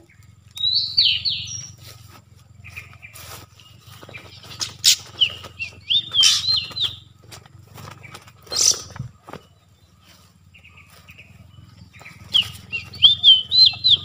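Oriental magpie-robin (kacer) singing in short, warbled whistled phrases, several bursts with pauses between, the loudest run near the end. Scattered sharp clicks and rustles in between.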